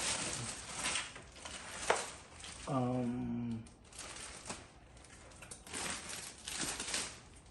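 Rustling and crinkling of packaging as a boxed PC case is handled, in irregular bursts, with a sharp click about two seconds in. A brief hum from a man's voice comes around three seconds in.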